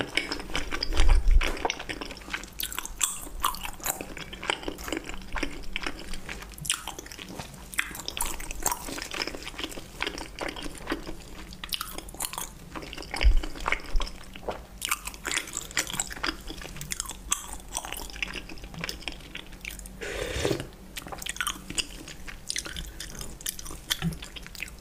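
Close-miked mouth sounds of someone chewing food: a dense run of small wet clicks and crunches. There are two louder low bumps, about a second in and around thirteen seconds.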